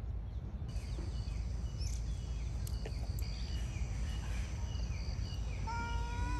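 Rural outdoor ambience: a steady low rumble with faint chirping insect and bird calls. A child's voice starts near the end.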